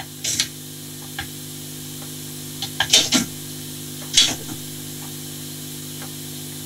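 Akai cassette deck fast-winding a tape under wired remote control: a steady whirring hum that grows slowly louder, with a few short clicks from the remote's buttons and the deck's transport.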